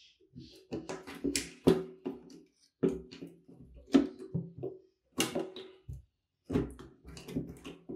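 Pliers gripping and twisting a rusted wire out of a hole in an old wooden hand-saw handle: irregular metal clicks and scraping creaks of the wire against the wood, in short bouts with brief pauses.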